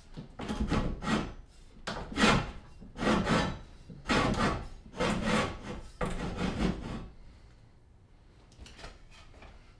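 Back-and-forth scraping on wood, in paired strokes about a second apart for some seven seconds, then stopping; a few faint strokes follow near the end.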